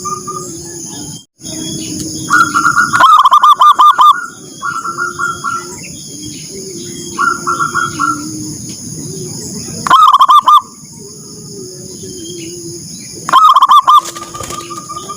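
Zebra doves (perkutut) calling: loud bursts of rapid, repeated cooing notes come every few seconds over a quieter, continuous low cooing.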